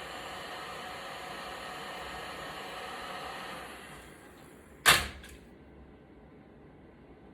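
Heat gun blowing steadily, then switched off and its fan running down, followed by one sharp knock, as of a tool set down on the bench.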